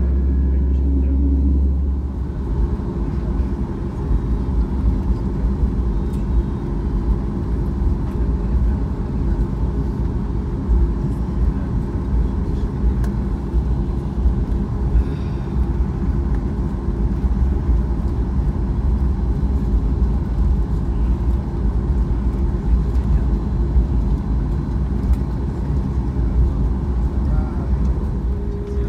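Cabin noise of a Boeing 737 MAX 8 taxiing: its CFM LEAP-1B turbofans running with a faint steady hum over a deep rumble from the wheels and airframe. About two seconds in the low rumble turns rougher and keeps up as the aircraft rolls on.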